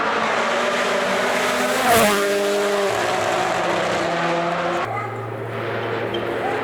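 Rally car running flat out on a stage and passing close by: its engine is loudest about two seconds in, where the pitch drops sharply, then it holds steady notes that step lower twice as it pulls away.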